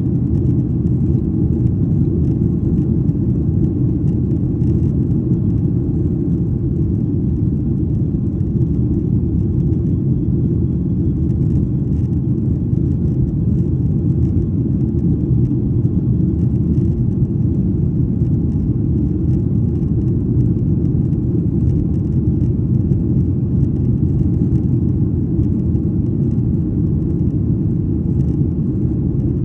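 Steady low rumble of a Boeing 737-800's CFM56-7B jet engines and rushing airflow, heard inside the cabin during the climb after takeoff.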